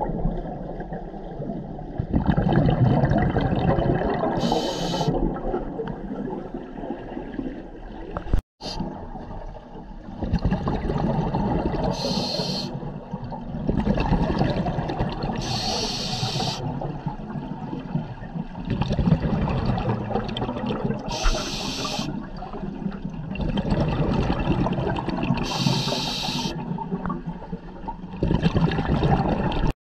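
Scuba diver breathing through a regulator underwater: five short high hisses of inhaled air a few seconds apart, between stretches of low rumbling and gurgling exhaled bubbles. The sound cuts out briefly about eight seconds in.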